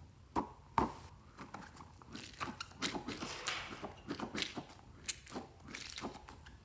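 Slime being kneaded and mixed by hand, making irregular sticky clicks and crackling pops, with two sharp snaps in the first second.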